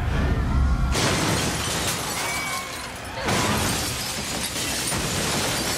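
A film sound effect of a magical explosion tearing through a hall, with glass shattering. A low rumble builds, then the blast breaks out suddenly about a second in, and a second wave of shattering follows about three seconds in.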